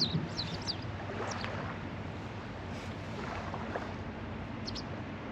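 Outdoor ambience: a steady low rumble and hiss, with a few short high chirps about the first half-second and again near the end.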